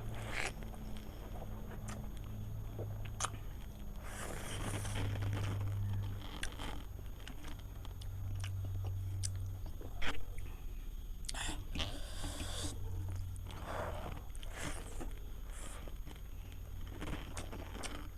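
A person chewing and biting into food, with scattered crunches and mouth clicks over a steady low hum.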